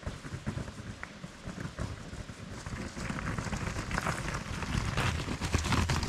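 Footsteps crunching on a gravel path, mixed with the uneven rumble and rattle of a hand-pulled camping cart's wheels rolling over rough ground.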